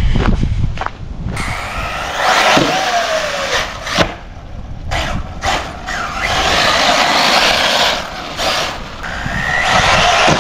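Arrma Typhon 6S brushless RC buggy driving fast over frozen dirt: the motor whine glides up and down with the throttle over a steady hiss of tires and thrown dirt, with a sharp knock about four seconds in.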